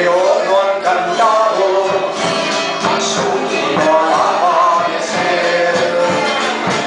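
A folk group singing a Chilote waltz (vals chilote) with voices over instrumental accompaniment.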